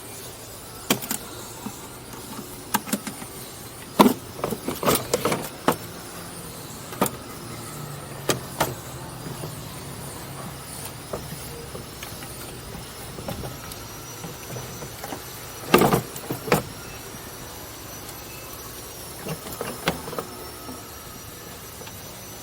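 Mitsubishi 4G64 four-cylinder engine running steadily under the hood, with a thin, wavering high whine. Scattered sharp clicks and knocks of handling come over it, the loudest cluster about 16 seconds in.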